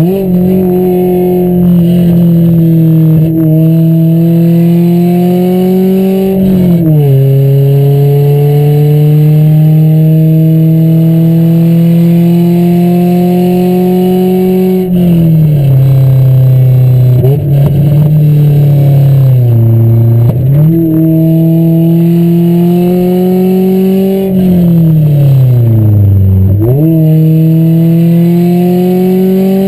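Car engine heard from inside the cabin while driving hard, its pitch climbing slowly as it pulls. The pitch drops sharply about seven and fifteen seconds in, then dips low and climbs back twice, near twenty and twenty-six seconds in.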